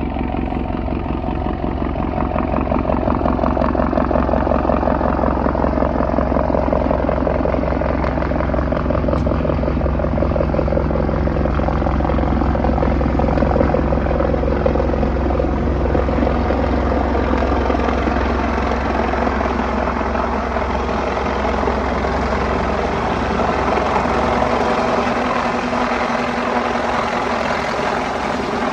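Helicopter running, its rotor beating rapidly and evenly over a steady low engine drone, swelling in the first few seconds and then holding as it comes in to land.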